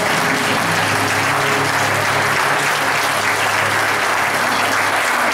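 A church congregation applauding: a dense, steady mass of clapping.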